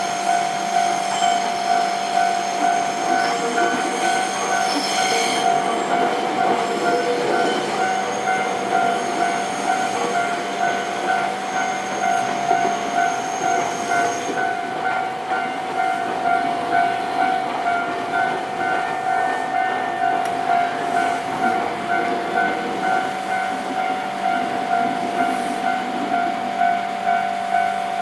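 Japanese level-crossing warning bell ringing steadily in an even, pulsing ding, about one and a half strikes a second. A train passes over the crossing through the first half, its wheels clattering on the rail joints, then fades.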